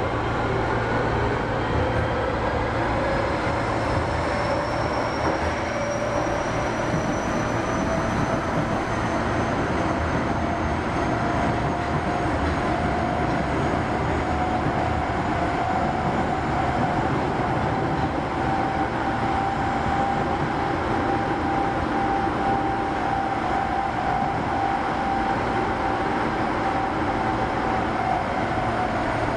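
Osaka Metro 25 series subway train running, heard from inside the car: a steady rumble of wheels and running gear with a motor whine that slowly rises in pitch, then levels off about two-thirds of the way through.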